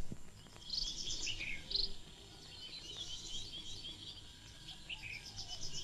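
Birds chirping and singing in a run of short, high, quick calls.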